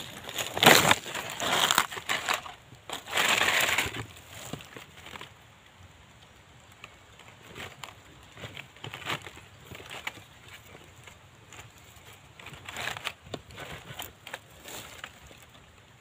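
Irregular crunching and rustling noises, loudest in the first four seconds, then fainter scattered rustles and clicks.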